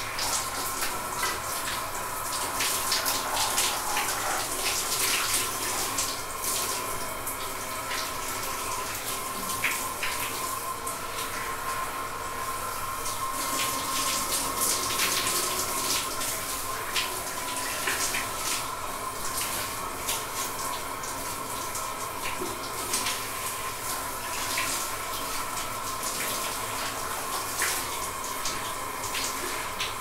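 Shower running steadily: an even hiss of falling spray with frequent small splashes.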